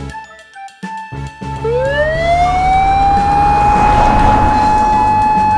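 Emergency-vehicle siren wail: it starts about a second and a half in, rises steeply in pitch, then holds one steady high tone. Light background music with a bass line runs underneath.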